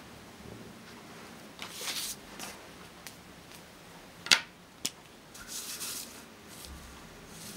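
A plastic ruler rubbing and sliding across a sheet of paper, with two sharp clicks about half a second apart a little past the middle.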